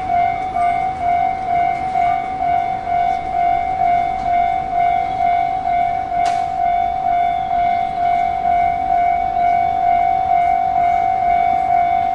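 Japanese level-crossing warning bell ringing, a steady quickly repeating electronic clang. A single sharp click sounds about halfway through.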